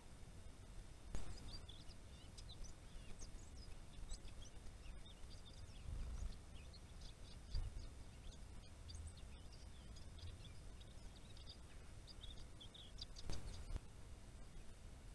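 Small wild songbirds chirping and twittering in many short, high calls, over a faint low rumble, with a brief burst of noise near the start and another near the end.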